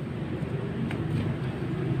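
Homemade electric centrifugal blower running with a steady low rumble; a light click sounds about a second in.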